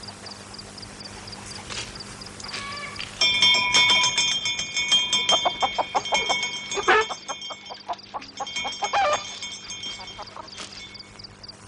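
Chickens clucking and squawking in a coop, loud and busy from about three seconds in until about nine seconds. Before and after that there is only a faint, rapid high chirping.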